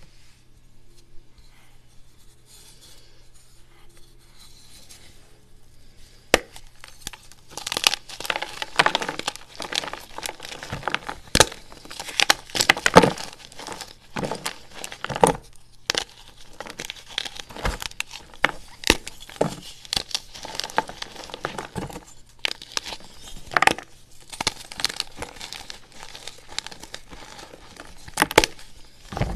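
A block of glitter-coated gym chalk is snapped and crushed by hand: quiet handling at first, then from about six seconds in a long run of sharp cracks and crumbly crunching as the chalk breaks into chunks and powder.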